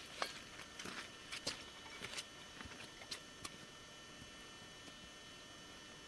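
Footsteps in snow: a series of uneven crunching steps through the first three seconds or so, which then stop, leaving a steady faint hiss.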